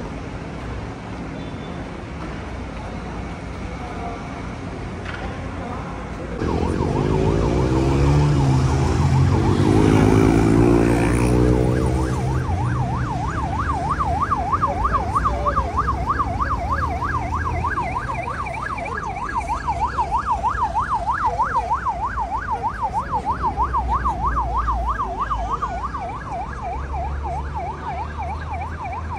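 Ambulance siren in a fast yelp, its pitch sweeping up and down several times a second, starting about seven seconds in and going on to the end. A loud vehicle engine and traffic rumble pass at the start of the siren.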